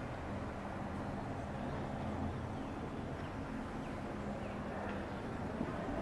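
Steady low rumble of outdoor background noise with a faint hum, and a few faint, short high chirps in the middle.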